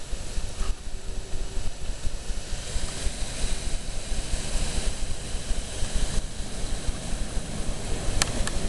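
Gale-force wind buffeting the microphone in gusts over a steady hiss of rain, with a few sharp clicks near the end.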